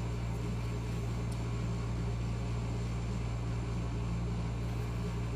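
Steady low hum, even in level.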